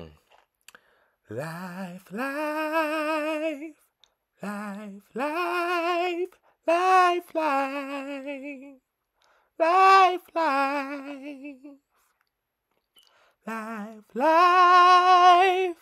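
A woman singing unaccompanied in five phrases split by short pauses. Each phrase slides up into long held notes with wide vibrato.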